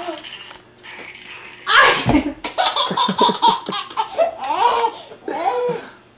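A sneeze about two seconds in, followed by a baby laughing in a run of repeated belly laughs that fade near the end.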